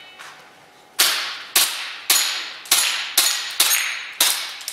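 Tokyo Marui SIG P226R gas blowback airsoft pistol, running on HFC134a, fired seven times about half a second apart. Each sharp crack runs into the ring of BBs striking steel target plates.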